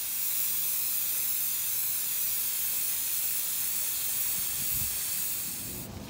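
Aerosol can of black 2X Ultra Cover paint and primer spraying in one long continuous hiss, coating a plastic vase, that stops just before the end.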